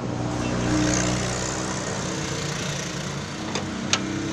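An engine running steadily, with a few sharp clicks near the end.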